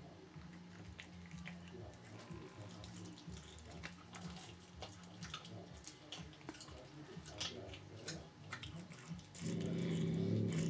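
Cat eating a whole raw chick, chewing and tearing at it: a run of small wet clicks and crunches. About nine seconds in, a louder steady low hum sets in under the chewing.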